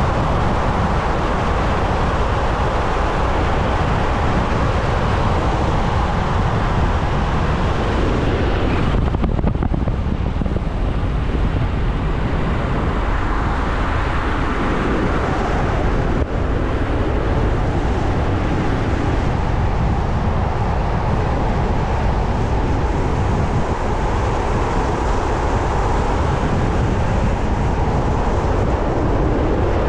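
Car driving along a road: steady tyre and engine noise, the hiss briefly dipping about nine seconds in.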